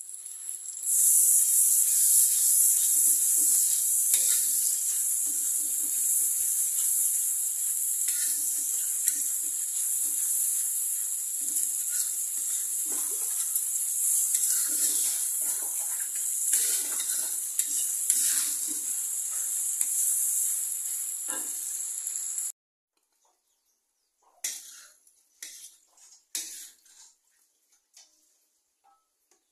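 Ground chili paste sizzling as it fries in oil in a wok: a steady high hiss, with a spatula scraping and stirring through it. About 22 seconds in, the sizzle cuts off, and a few light clinks and scrapes follow as food is scooped onto a plate.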